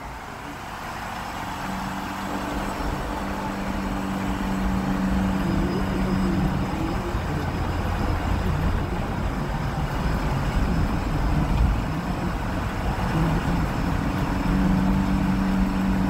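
Car engine and tyre noise heard from inside the car as it drives through a road tunnel. It is a steady rumble that grows louder over the first few seconds, with a low humming drone that fades out about halfway and comes back near the end.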